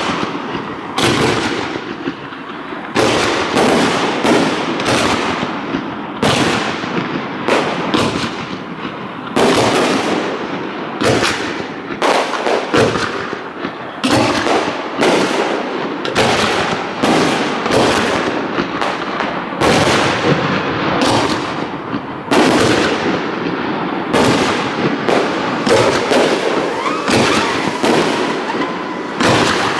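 Aerial fireworks shells bursting in rapid succession, about one or two sharp reports a second, over a continuous crackle and rumble of overlapping bursts.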